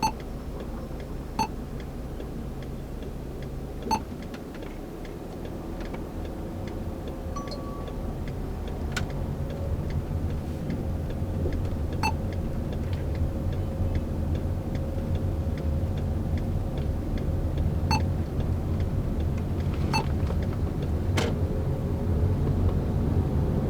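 Road and engine noise inside a moving car: a low rumble that grows louder from about eight seconds in, with short sharp clicks every few seconds and one brief beep about seven seconds in.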